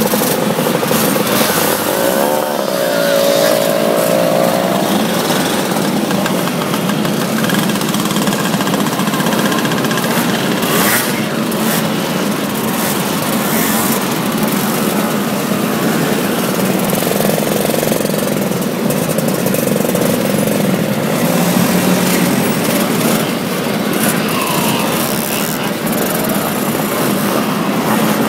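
A string of motorcycles riding past close by, one after another, engines running under load. One engine's note rises as it accelerates about two seconds in.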